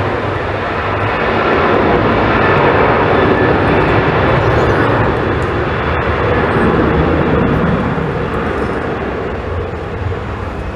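Airliner's engines running loud as the aircraft passes, swelling to a peak a couple of seconds in and then slowly easing off.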